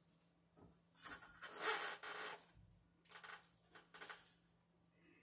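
Two spells of rustling and scraping, a second or so each, about a second in and again about three seconds in, from hands handling electrical cable and wiring parts overhead.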